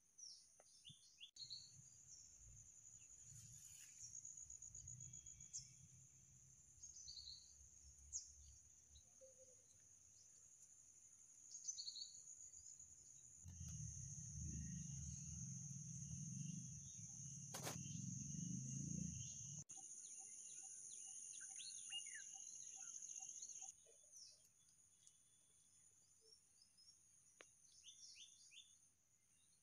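Insects trilling in a steady, high-pitched drone, with scattered short bird chirps. A low rumble joins for about six seconds midway.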